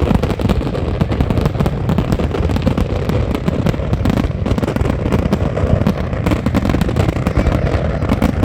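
Fireworks display at full intensity: a dense, unbroken barrage of bangs and crackling, many per second.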